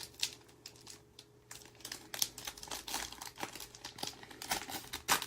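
Plastic crinkling with many small irregular clicks as trading-card sleeves and packaging are handled, busier in the second half.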